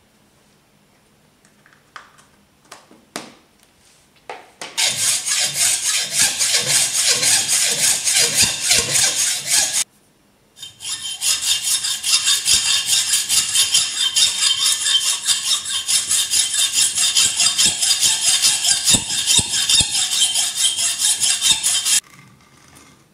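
Hacksaw cutting through an Okudo suita natural Japanese whetstone with fast, even back-and-forth strokes. A few light knocks come first, then about five seconds of sawing, a short pause, and about eleven seconds more that stop abruptly near the end.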